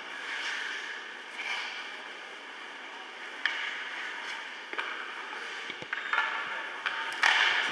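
Ice hockey play in an echoing indoor rink: skate blades scraping the ice, with sharp clacks of sticks and puck from about five seconds in.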